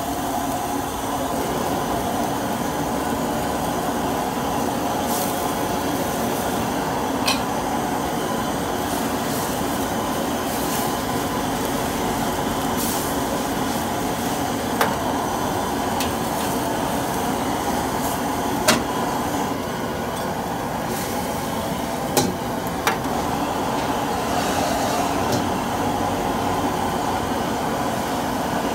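Steady roar of a gas wok burner under a steel wok, with a few sharp clinks of a metal ladle striking the wok.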